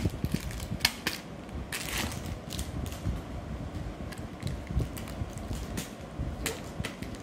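Wrapped chocolates being handled: irregular crackling and crinkling of the wrappers, with sharp clicks as pieces knock against a clear plastic tub.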